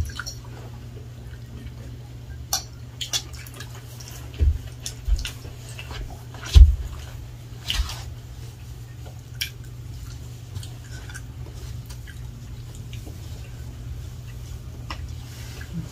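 Spoons and forks clicking and scraping against plates at a meal, with scattered soft knocks and a few low thumps, the loudest about six and a half seconds in, over a steady low hum.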